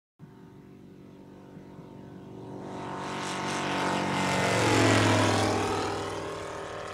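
ICP Savannah light sport aircraft flying past low overhead under power: its propeller and engine note grows louder to a peak about five seconds in, then falls away as the pitch drops.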